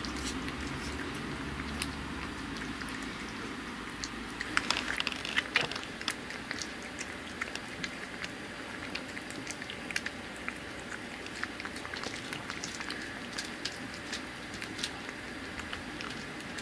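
A cat eating a soft, wet jelly treat from a small ceramic dish, with wet licking and chewing clicks throughout. The clicks are busiest and loudest about five seconds in.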